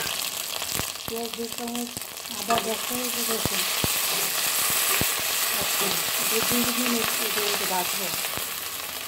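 Onions and ginger-garlic paste sizzling in hot oil in a metal pan, stirred with a wooden spatula that knocks and scrapes against the pan. A few brief, faint pitched sounds come through in the background.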